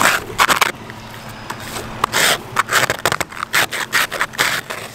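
Plastic ice scraper scraping frost off a car's side window glass in short repeated strokes, about two a second, over the steady low hum of the 1949 Frazer's engine idling to warm up.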